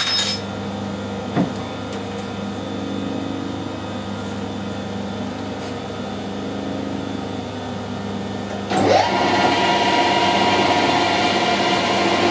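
Harrison metal-turning lathe running with a steady hum, a knock about a second and a half in. About 9 s in the sound steps up suddenly and stays louder, with a steady higher tone, as the tool goes into a test cut along the bar to check the tailstock alignment for taper.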